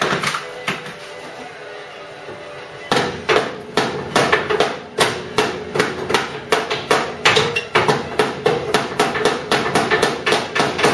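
Hammer tapping a tack-welded steel bulkhead repair panel flush on a Ford Cortina Mk3 body: two single blows, a short pause, then rapid steady blows, about three to four a second, each with a metallic ring.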